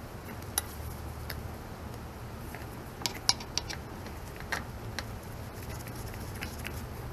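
Scattered small metallic clicks and taps as gloved hands handle and work loose the steel hydraulic line fittings on an excavator's hydraulic tank, with a quick cluster of sharper clicks about three seconds in, over a steady low hum.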